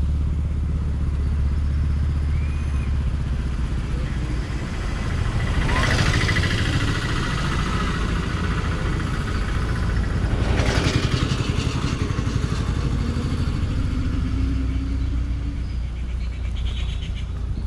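Motorcycle engine running steadily while riding along a road, with wind rumble on the microphone. There are two louder rushing swells, about six and eleven seconds in.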